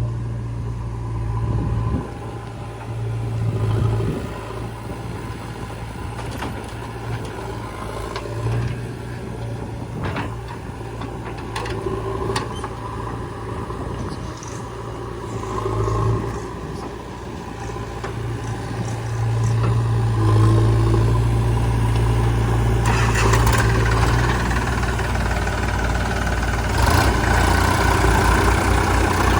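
Heavy diesel engines of a backhoe loader and tractor running, with the engine note rising and falling under changing load. The sound gets louder and fuller about two-thirds of the way through.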